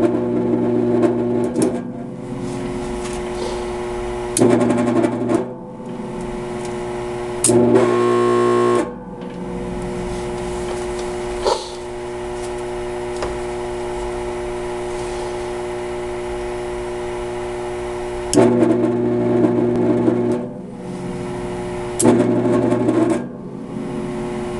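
Carbon arc torch's arc buzzing and crackling in five bursts of one to two seconds, as the arc is struck and broken again. A steady electrical hum carries on between the bursts.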